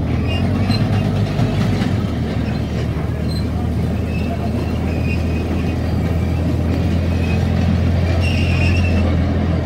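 Small amusement-park ride train rolling along its track, with a steady low hum and rumble from its drive and wheels. A brief high squeal comes in near the end.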